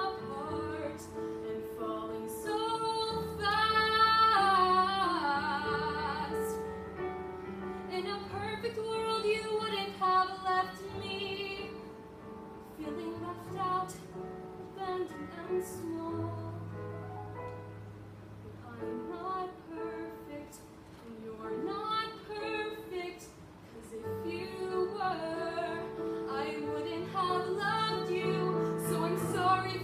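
A girl singing a solo song over an instrumental accompaniment, her held notes wavering with vibrato.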